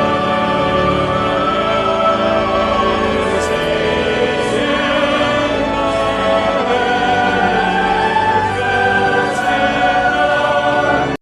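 Choir singing slow, held chords, cut off abruptly at the end.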